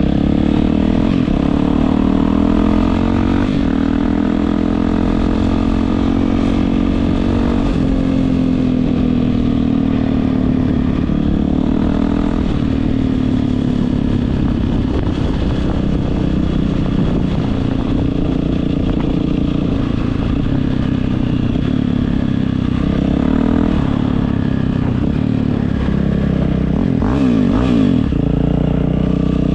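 Yamaha WR450F single-cylinder four-stroke dirt bike engine running through an Akrapovič exhaust, its pitch rising and falling gently as the revs change.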